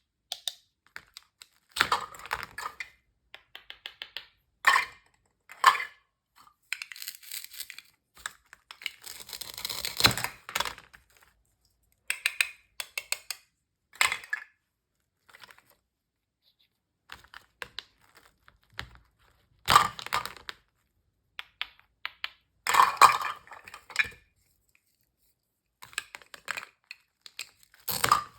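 Knife cutting toy food pieces: clusters of sharp clicks and short scraping strokes separated by pauses, with a longer scraping stretch about a third of the way through.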